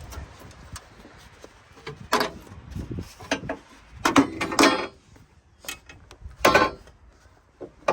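Metal clunks and rattles of the F150's factory jack and lug wrench being popped out of their mounting clips: about half a dozen separate knocks, loudest around the middle.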